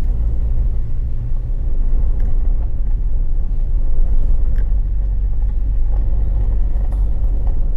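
Toyota Land Cruiser driving slowly along a dirt off-road trail: a steady low rumble of engine and tyres, with a few faint knocks.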